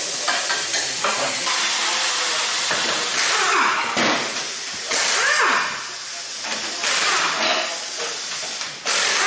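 Compressed-air hiss at tyre-shop work, with several louder bursts from an air-hose-driven tool. In some bursts the pitch falls steeply as the tool winds down.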